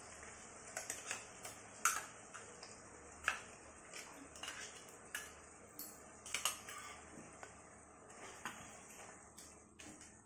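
Spoon clinking and scraping against a small metal bowl as ginger-garlic-chilli paste is emptied into a wok of frying masala, a dozen or so irregular light clicks over a faint steady hiss. Near the end a spatula starts stirring the masala in the pan.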